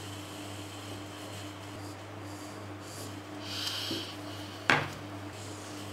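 Marker drawing on pattern paper and a clear plastic French curve rubbing and sliding across the paper as it is moved, with one sharp tap near the end, over a steady low hum.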